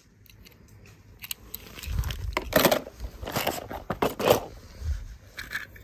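Plastic toys being handled: a run of short scrapes and clacks, loudest between about two and a half and four and a half seconds in.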